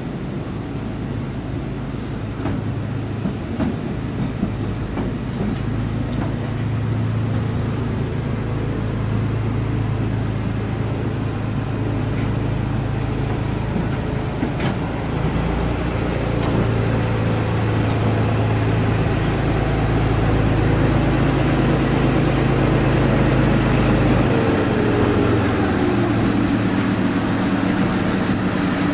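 Narrow-gauge train's coaches rolling slowly past along a station platform, with a steady low rumble and hum that grows a little louder as the locomotive draws level, and a short falling squeal about 25 seconds in.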